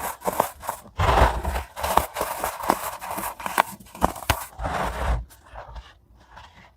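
Chunks of baking soda being snapped and crushed: a dense run of crisp crunches and sharp cracks that dies away about five seconds in.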